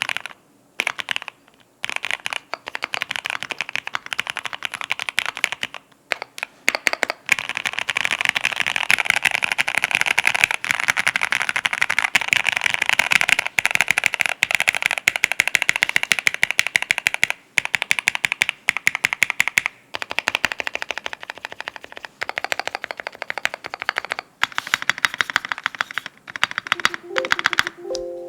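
Fast, continuous typing on a mechanical keyboard with lubed TTC Golden Red V3 linear switches on an aluminium plate with PBT keycaps: a dense patter of keystrokes broken by a couple of short pauses. Music comes in just before the end.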